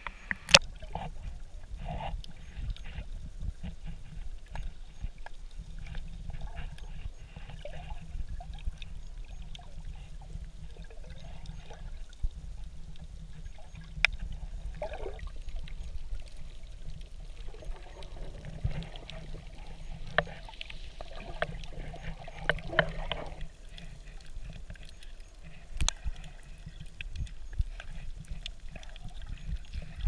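Sea water heard by a camera held at and under the surface: a steady low, muffled rumble of moving water with scattered sharp clicks and gurgles.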